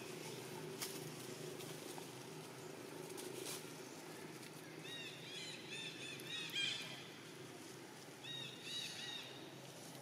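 Two runs of rapid, short, high chirping calls, the first lasting about two seconds starting about five seconds in and a shorter one near the end, over a steady low hum.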